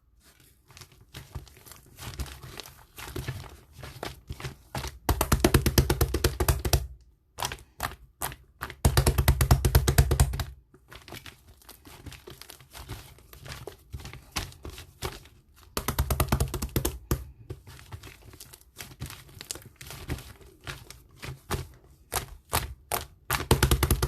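Cloud slime being worked by hand, squeezed, stretched and pressed, giving dense runs of soft crackling and squishing clicks, with several louder spells.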